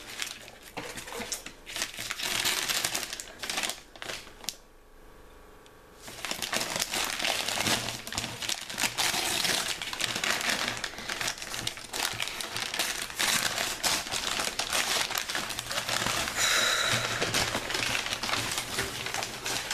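Wrapping paper crinkling and rustling as a wrapped gift is unwrapped by hand, with a brief lull about four and a half seconds in.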